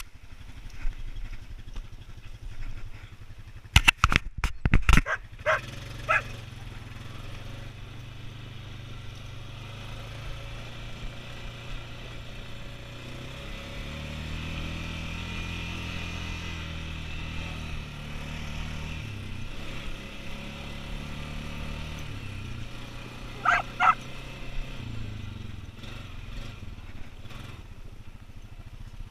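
An ATV engine runs as the quad is ridden over snow, its pitch rising through the middle and falling back. A few loud knocks come about four seconds in. A dog barks twice about six seconds in and twice more later on.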